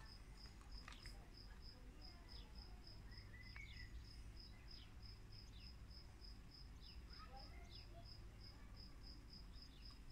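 Faint cricket chirping in an even, unbroken rhythm of about four high chirps a second, with a few faint short chirps from other small creatures now and then; otherwise near silence.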